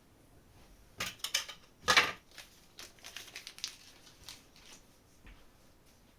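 Things on a work desk being handled: a few loud crinkling, rustling bursts about one to two seconds in, then lighter crackles and taps that die away.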